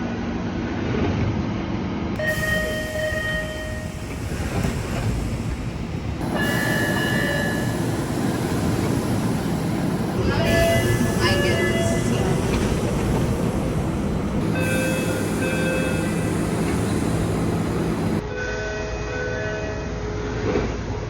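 MBTA Orange Line subway car exterior door chimes: several short recordings cut back to back every few seconds. Each holds a few steady chime tones over the rumble of the train and the station, and the background changes abruptly at each cut.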